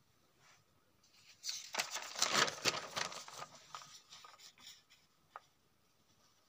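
Paper rustling and crinkling as a notebook page is turned, loudest for about two seconds and then fading, followed by a single light click near the end.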